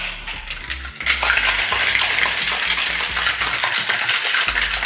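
Ice rattling hard inside a metal cocktail shaker as it is shaken, a dense, continuous rattle starting about a second in, after a few clinks as the shaker is closed.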